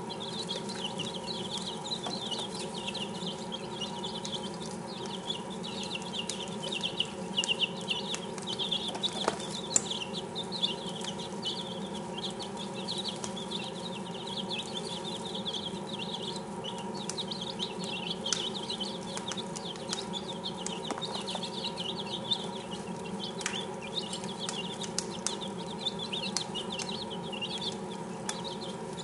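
A brood of six-day-old chicks peeping continuously, many short high cheeps overlapping, over a steady low hum with a few sharp clicks.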